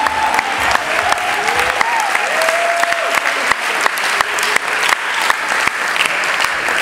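Audience clapping, with a few cheers gliding up and down over it in the first half.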